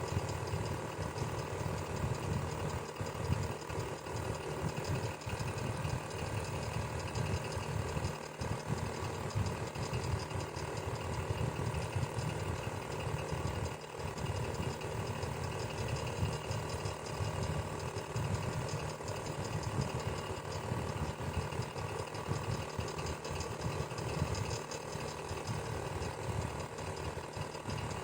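Electric fan running steadily: a constant motor hum with a low rapid flutter and a faint mechanical rattle.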